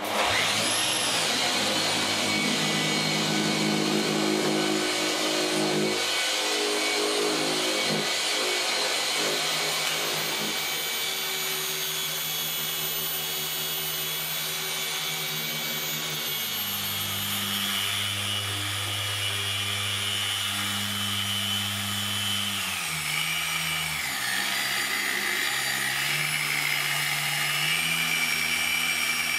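Rupes dual-action polisher running steadily against the car's door paint during machine polishing for paint correction. It starts abruptly, and its pitch sags for a moment a little over 22 seconds in before picking back up.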